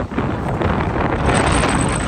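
Strong wind gusting at around 62 miles an hour, blasting across the microphone as a loud, heavy rush of noise that swells just after the start.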